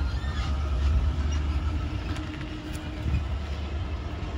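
Ice cream truck's engine running with a steady low rumble as the truck pulls away down the street.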